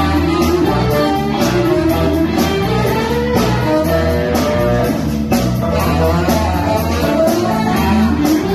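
Live R&B band playing a funk groove: electric bass and drum kit, with a snare backbeat about once a second and guitar and horn lines on top.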